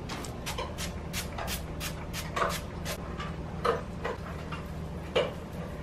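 A run of quick, sharp clicks and taps, fairly regular for the first three seconds and then a few louder single knocks, from handling broccoli florets on a metal baking sheet and a plastic seasoning shaker. A steady low hum sits underneath.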